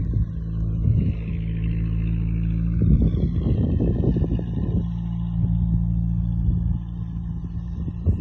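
An engine running steadily at a constant speed, with a rougher, noisier stretch in the middle.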